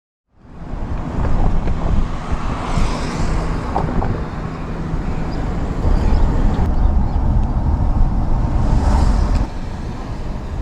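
Wind buffeting the microphone over road traffic noise, cutting in abruptly just after the start and easing a little near the end.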